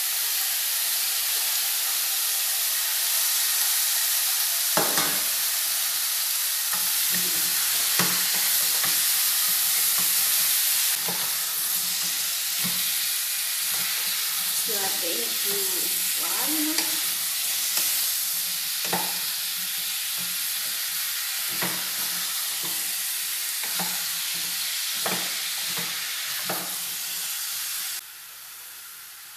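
Diced chayote sizzling in a pot of hot lard and browned garlic, with a wooden spoon knocking and scraping against the pot as it is stirred. The sizzling drops sharply near the end.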